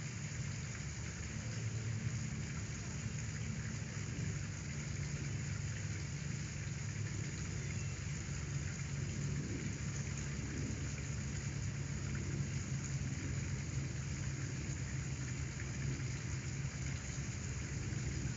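Steady background noise: an even hiss with a low hum underneath, unchanging, with no distinct events.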